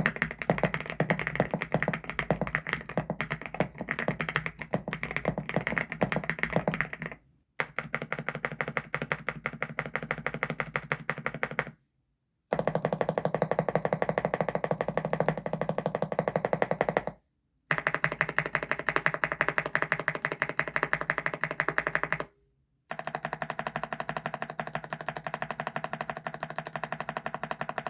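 Fast typing on a CIDOO ABM081 Stellar mechanical keyboard with CIDOO Carda switches, a dense run of keystroke clicks. It comes in several bursts of about five seconds, each broken off by a brief silent cut.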